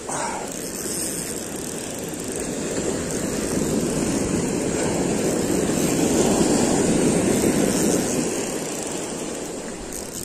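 Ocean surf: a wave breaking close in and washing up the sand. The rushing builds through the middle and eases off near the end.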